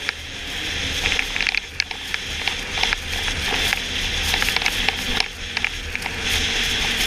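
Onboard riding noise of a moving snowmobile on a groomed trail: a steady rush and low rumble, with many sharp clicks and crackles scattered throughout.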